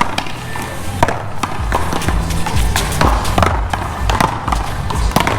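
Music with a heavy, steady bass beat, over which come the sharp cracks of paddles striking a paddleball and the ball hitting the wall, several in a quick rally.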